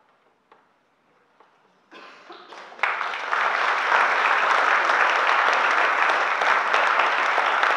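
Audience applause after a choral piece: about two seconds of hush, a few first claps, then full, steady applause from about three seconds in.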